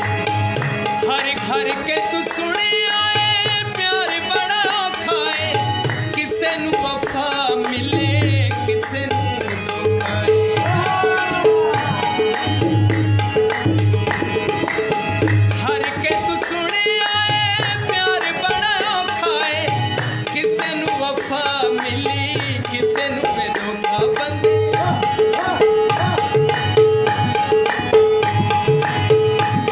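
Background music: a song with tabla drumming, a steady drone tone, and a singing voice that comes and goes.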